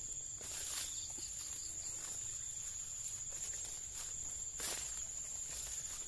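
Slow footsteps along a field path, with a few soft strokes, over a steady high-pitched insect drone.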